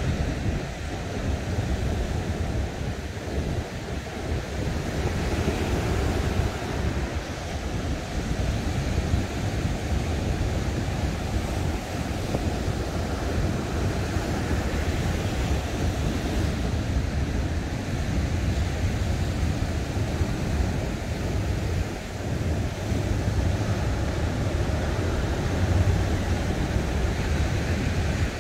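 Ocean surf breaking and washing up the beach in a steady rush, with wind noise on the microphone.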